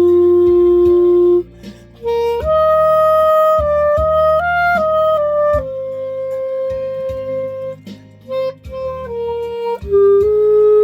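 Clarinet played by an amateur, a slow song melody of long held notes that step up and down, with a short break for breath about a second and a half in. A quieter accompaniment sits underneath.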